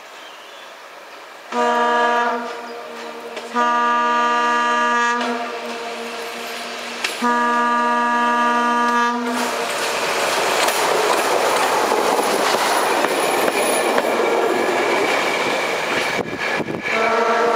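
ČSD/ŽSR class M 131.1 'Hurvínek' diesel railbus sounding its horn three times as it approaches: a short blast about a second and a half in, a longer one about four seconds in, and another about seven seconds in. It then runs past with a steady rush of engine and wheel noise, and a fourth horn blast starts near the end.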